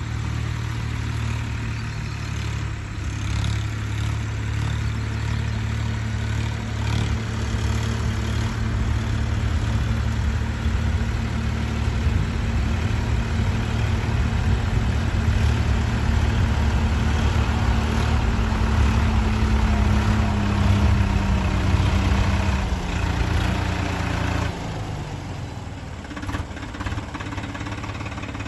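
Swaraj 963 FE tractor's diesel engine running steadily as the tractor ploughs a field. Its engine note drops about three-quarters of the way through as it slows down.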